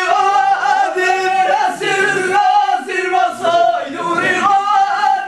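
Men's voices chanting in long held notes that bend and slide in pitch.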